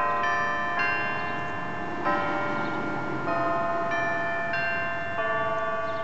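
Church bells chiming a slow tune, a new note struck every second or so and ringing on over the fading notes before it.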